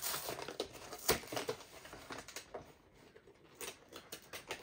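Crinkling and light clicking of a Pokémon card box's packaging being handled and opened by hand, irregular small rustles with a sharper click about a second in.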